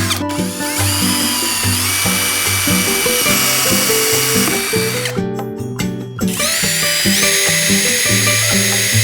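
A small electric power tool running with a high whine that steps up in pitch as it speeds up. It stops for about a second around five seconds in, then starts again. Background music plays under it.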